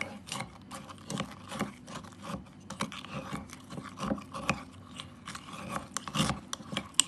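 A utensil repeatedly scraping and mashing milk-soaked Oreo cookies in a container, short irregular scrapes and clicks about two or three a second.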